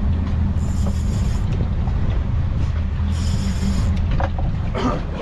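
Fishing boat's engine running steadily, a low hum, with short high hissing spells about every two and a half seconds.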